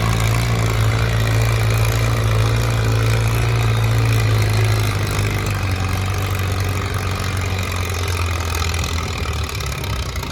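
Farm tractor engine running steadily at a tractor pull, its pitch dropping a little and its hum easing about halfway through.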